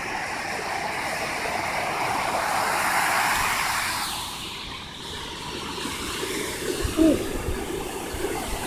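Waves washing on the beach: a wash of surf swells over the first few seconds, fades about five seconds in, then builds again. A brief short pitched sound comes about seven seconds in.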